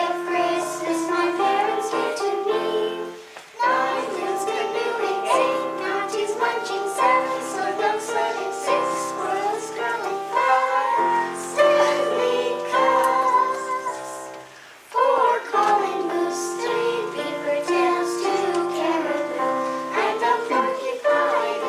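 A group of children singing a song with musical accompaniment, in phrases with two short breaks between them.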